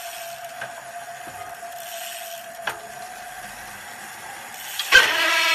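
Mavic Cosmic SL rear wheel's freehub spinning with a faint steady whine, then, after a sharp click near the end, a much louder, sharp steady squeal with many overtones sets in. The freehub has too much internal drag, friction between its nylon body and rubber seal, so it turns the cranks with the wheel and squeals at speed.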